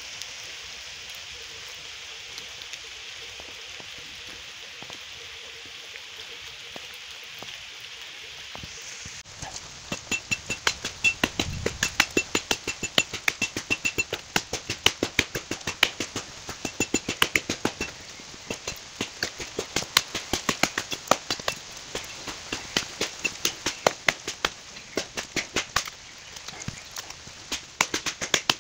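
Steady rain on the forest. About nine seconds in it gives way to a Tramontina machete chopping into a standing tree trunk, sharp blows at a steady two to three a second as a felling notch is cut.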